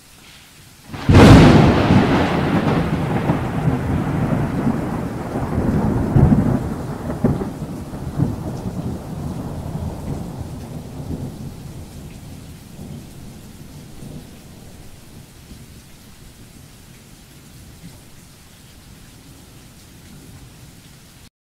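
Thunderclap sound effect: a sudden crack about a second in, then a long rolling rumble that slowly fades into a faint steady hiss like rain.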